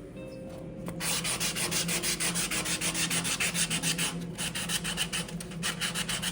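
Hand sanding of a hardened resin patch on a marble shower seat: rapid back-and-forth rubbing strokes, starting about a second in, with two brief pauses.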